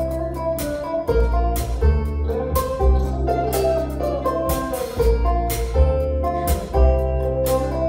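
Bluegrass band playing an instrumental intro live: banjo and acoustic guitar picking over fiddle and upright bass, with percussion hitting a steady beat about twice a second.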